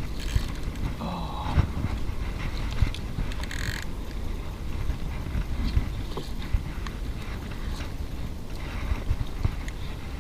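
Handling noise on a rocky, plant-covered bank: scattered knocks and rustles of hands and feet moving over rocks and leafy groundcover, over a steady low rumble on the microphone.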